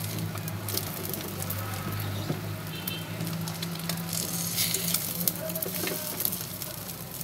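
Egg and bread frying in hot cooking oil in a nonstick pan, a continuous sizzle with scattered crackles, as a fork turns the bread over in the pan.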